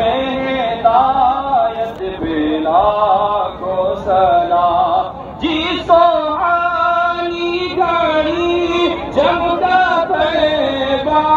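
A man singing an Urdu naat in long melodic phrases, with held notes that bend and waver, amplified over a loudspeaker.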